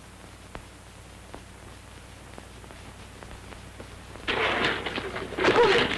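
Old film soundtrack hiss and low hum with a few faint clicks. About four seconds in, a louder noisy sound comes in, and a woman's voice starts near the end.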